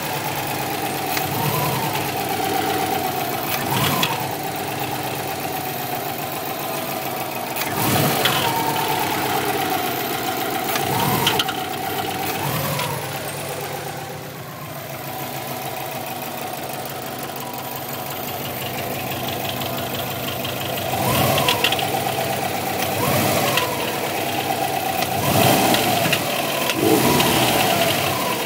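Subaru WRX's turbocharged EJ20 flat-four engine idling with short throttle blips every few seconds, the pitch rising and falling back each time. It has a knocking sound that the owner suspects comes from the turbo or from a spun crank bearing.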